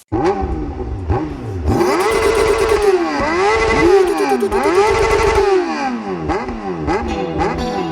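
Engine revving up and down over and over, the pitch rising and falling again and again in quicker blips toward the end. It is a recorded revving sample used to open a track about the roar of an engine.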